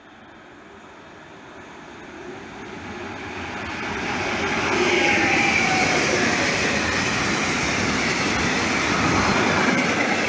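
Freight train of tank wagons approaching and running through at speed: the rumble builds over the first five seconds, then stays loud as the wagons pass, with a high whine that slowly falls in pitch.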